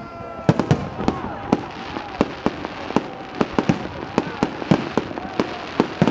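Fireworks salute: aerial shells bursting overhead in a rapid, irregular run of sharp bangs, about four or five a second.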